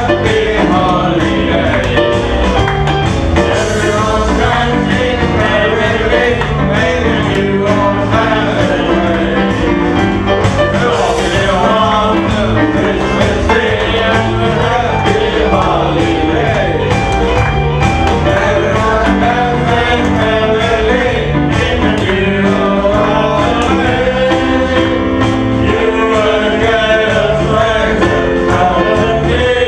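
Live band playing a song, with a singer over guitar-backed accompaniment.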